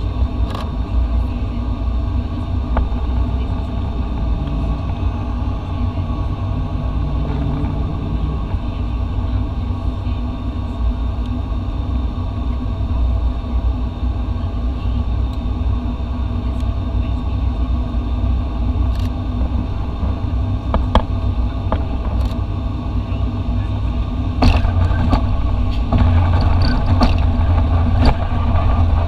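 Cabin noise of a turboprop airliner on final approach: a steady low engine and propeller drone. About 24 seconds in the wheels touch down with a jolt, and from there the drone and runway rumble grow louder as the plane rolls out.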